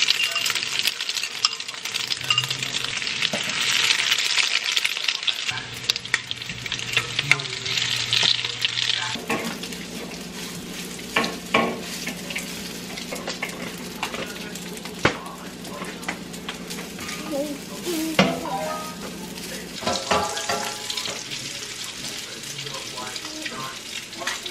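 Slices of Spam sizzling in a hot oiled pan, with clinks and scrapes of a metal fork against the pan as they are turned and lifted out. The sizzle is loudest for the first nine seconds or so. After that it is quieter, over a steady low hum, with scattered sharp clicks.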